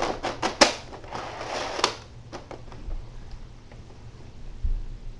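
Hard plastic clicks and rattles as the bipod legs of a Nerf Mega Centurion blaster are folded out. There is a quick run of sharp clicks and rustling in the first two seconds, then a few lighter ticks, and a dull thump near the end.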